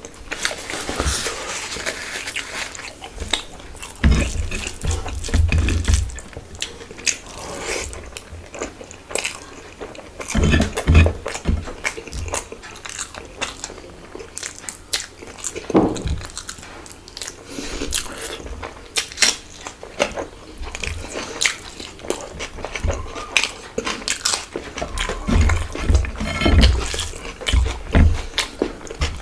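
Close-miked eating sounds from a person eating rice khichuri by hand: wet chewing and lip smacking with many irregular small clicks, plus the squish of fingers mixing soft rice on the plate.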